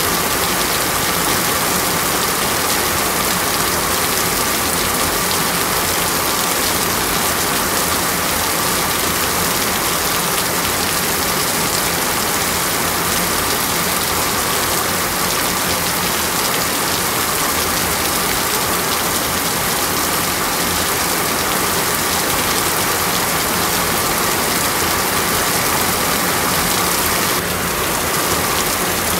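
Rain falling steadily: a loud, even hiss.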